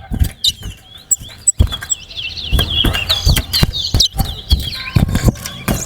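A caged towa-towa seed finch singing in a contest: a fast, jerky warbled song, pitched high, repeated with short breaks and louder from about a second and a half in. Sharp knocks and low rumbling noises sound over it.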